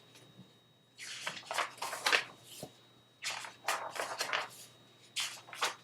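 Paper rustling and crackling as a picture book is handled and opened, in three short bursts with pauses between.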